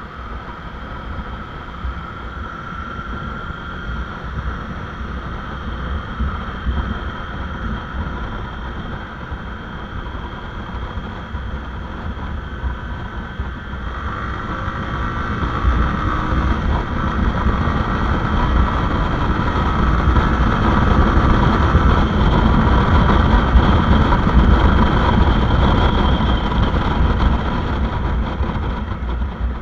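Motorcycle engine running on the move with steady wind rush on the microphone. It grows louder about halfway through and eases a little near the end.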